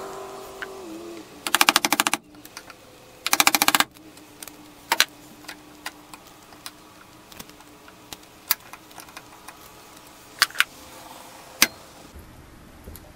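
Two short bursts of very rapid clicking, followed by scattered sharp clicks and taps of hand tools working at nails in a wooden window frame.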